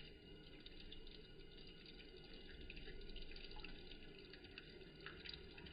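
Waterfall-style bathroom faucet running, a thin sheet of water splashing steadily and faintly into the sink basin.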